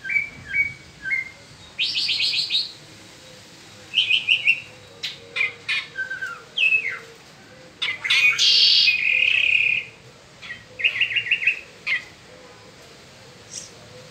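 Mockingbird spring song: a varied run of short phrases, each of rapidly repeated notes, sharp clicks or down-slurred whistles, with brief pauses between them.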